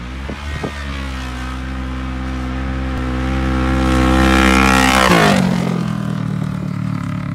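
Kawasaki KRX 1000 side-by-side's parallel-twin engine running hard as the machine drives across a field, getting louder as it comes close. About five seconds in its pitch drops sharply as it passes and pulls away, then runs on at a lower steady note.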